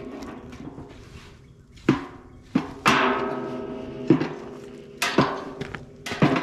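Stirring rod knocking against the inside of a 55-gallon steel drum burn barrel while stirring the burning trash, about eight knocks, several in quick pairs, each leaving the drum ringing briefly.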